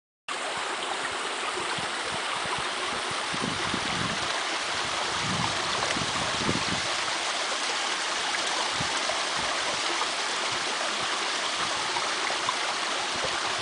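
A rocky mountain stream, partly iced over, running with a steady rush of water that cuts in abruptly at the start.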